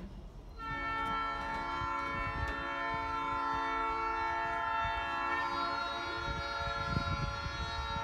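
Diesel locomotive air horn sounding one long, steady blast of several notes together, starting about half a second in.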